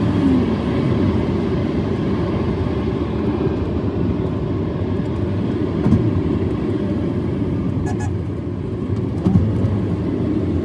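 Steady road and tyre noise inside a moving Toyota Prius's cabin, played at double speed.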